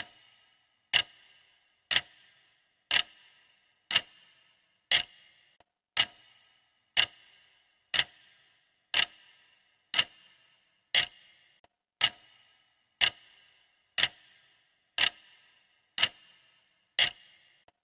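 Clock ticking steadily, one sharp tick per second, each with a short ringing tail.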